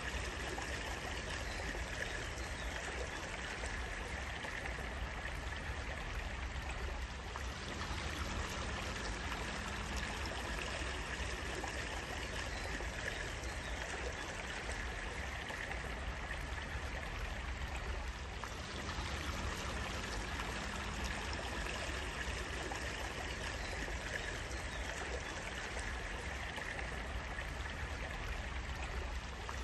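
Water flowing steadily in a stream, a continuous even rush and trickle.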